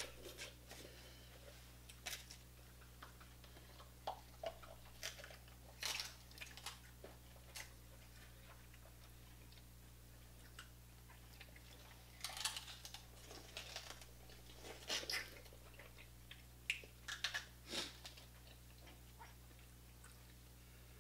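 Close-up eating sounds of a seafood boil: quiet chewing and biting, with scattered short clicks and crackles as crab legs are picked apart. The crackles come in small clusters, busiest past the middle.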